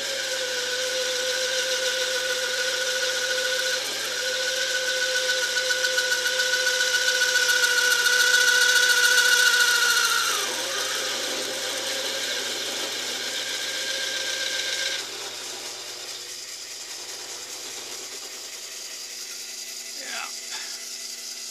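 Taig lathe's motor whining under load while a spring parting-off tool cuts into a 1 5/8 inch mild steel bar, too big a cut for this small lathe. The sound grows louder, its pitch sags briefly about ten seconds in, and around fifteen seconds the cutting noise stops while the lathe runs on more quietly.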